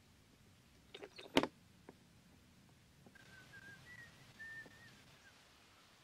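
A few light clicks, then one sharp loud snap about a second and a half in: the door of a homemade bucket pigeon trap slamming shut behind a pigeon. Near the middle a faint wavering whistle runs for about two seconds.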